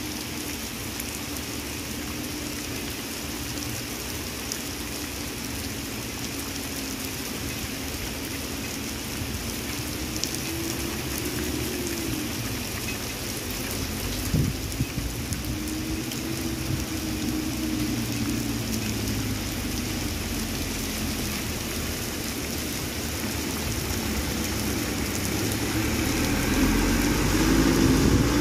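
Heavy rain falling on a wet asphalt road, a steady hiss, with the hum of passing traffic at times. Near the end a truck drives up, its engine and tyres on the wet road getting louder.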